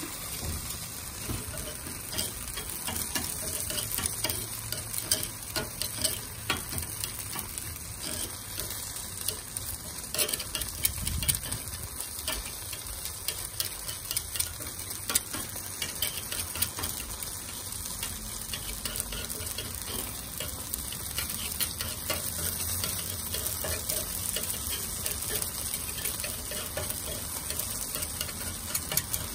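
Takoyaki batter sizzling steadily in a multi-well takoyaki plate. Frequent light clicks and scrapes come from a metal pick against the plate as the batter is cut between the wells and the balls are turned.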